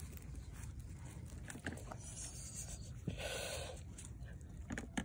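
Hands handling naan in its foil and plastic wrapping: faint rustling and crinkling, with a short louder crinkle about three seconds in, over a steady low rumble.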